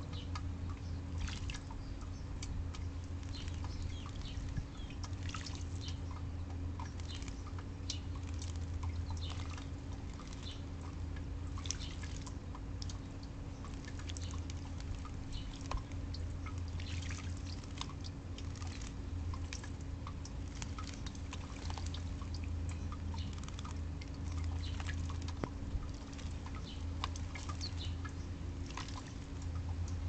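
House sparrows splashing in a shallow bird bath: irregular small splashes and drips of water, over a steady low hum.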